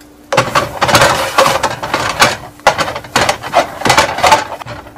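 Spatula scraping and knocking against a frying pan in a rapid, irregular run of loud scrapes and clatters while a stuck pancake is worked loose; it stops just before the end.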